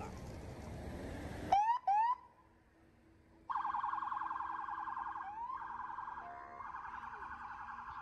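Emergency-vehicle siren: two quick rising whoops about a second and a half in, then after a short pause a fast-warbling siren that steps up in pitch partway through.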